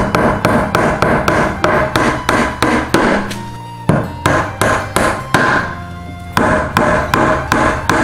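Hammer driving nails into a wooden table frame: quick, even blows about three a second, in three runs with two short breaks between them.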